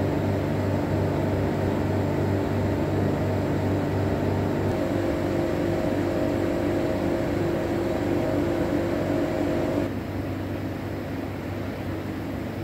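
Steady mechanical hum with several held tones over a low drone. The tones shift abruptly about five seconds in, and the sound drops quieter about ten seconds in.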